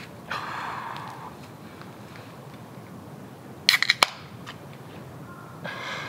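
Pull-tab of a drink can being cracked open: a quick run of sharp clicks about four seconds in, ending in one loud snap with a brief hiss after it.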